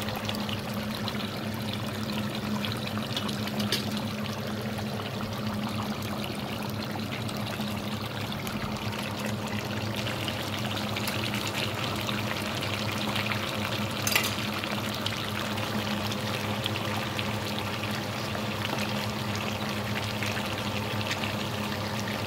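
Deer meat curry simmering in a pot, its thin spiced liquid bubbling with a steady hiss. A steady low hum runs underneath, and a single click comes a little past halfway.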